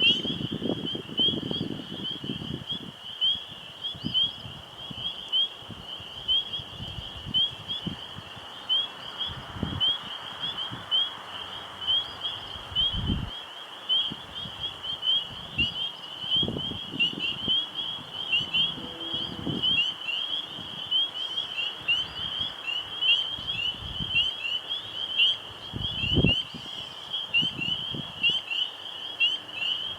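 A dense night chorus of frogs, many short high peeps overlapping without a break. Low gusts of wind rumble on the microphone now and then, most strongly about 13, 17 and 26 seconds in.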